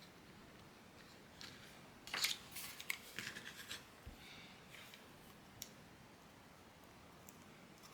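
Quiet clicks and rustling of hands handling small craft pieces while hot-gluing them on: a busy cluster about two to four seconds in and a single sharp click a little past halfway.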